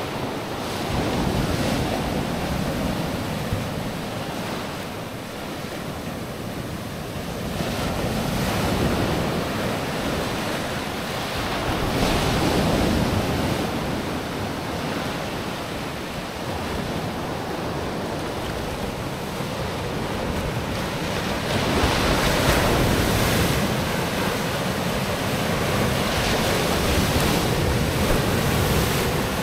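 Sea waves breaking and washing up on a sandy beach, the surf swelling and falling back every few seconds, with wind on the microphone.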